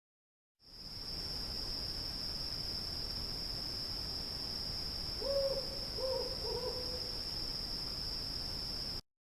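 Night ambience effect: a steady high insect trill over a faint hiss. About five seconds in, an owl hoots three times. The whole effect cuts off suddenly.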